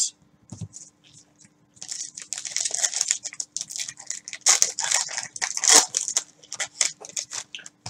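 Plastic wrapper of a Panini Prizm basketball card pack rustling in irregular crinkles as it is torn open by hand, starting about two seconds in.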